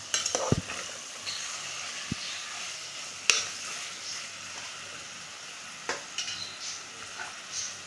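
Marinated chicken sizzling in oil with onion-tomato masala while a spoon stirs it, scraping and clinking against the pot. The sharpest clink comes about three seconds in, with a few more near the end.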